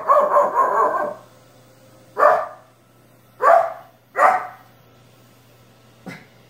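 Small dog barking at a robot vacuum: a run of barks in the first second, then three single barks spaced about a second apart, and a weak one near the end, over a faint low hum.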